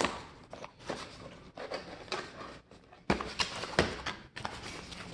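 Cardboard product packaging being handled: irregular rustling, scraping and light knocks as the inner box slides out of its sleeve.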